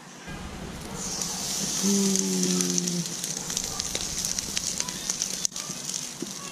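Olive-oil-rubbed rack of lamb sizzling as it sears on a grill grate over a wood fire, a steady hiss that starts about a second in, with small crackles from the fire. A brief low steady hum sounds about two seconds in.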